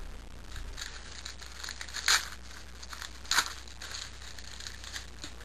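A foil trading-card pack wrapper being torn open and crinkled by hand, with two louder rips about two seconds and three and a half seconds in.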